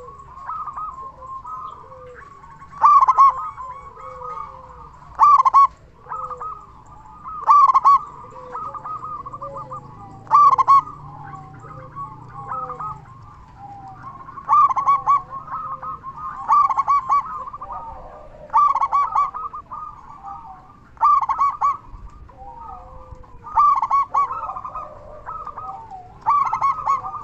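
Zebra dove (perkutut) cooing its loud song phrase again and again, roughly every two and a half seconds, with softer calls between phrases.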